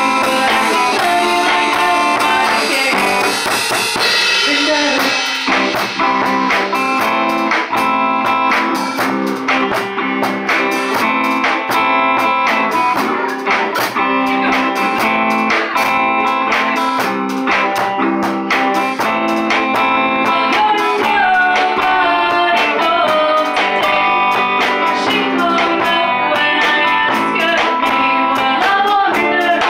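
Live band playing: hollow-body electric guitar, bass and drums, with a woman singing into a microphone over them.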